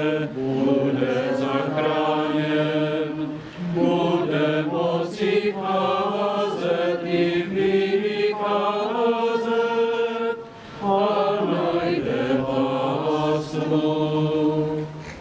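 Voices singing a slow liturgical chant in long held notes, phrase after phrase, with brief breaths between phrases about three and a half and ten and a half seconds in.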